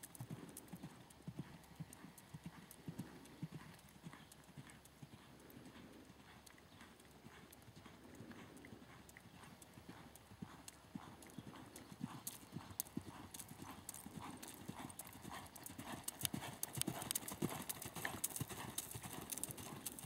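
Hoofbeats of a Quarter Horse gelding under saddle moving around a sand arena, an even rhythm of soft strikes. They grow louder about two-thirds of the way through.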